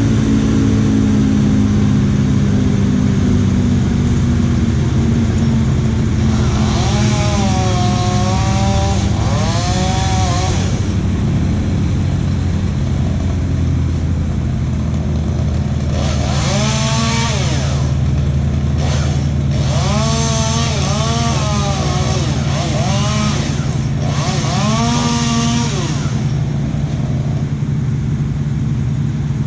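A chainsaw revved up and down in repeated bursts, in two spells of several seconds each, over a steady low engine hum that runs throughout.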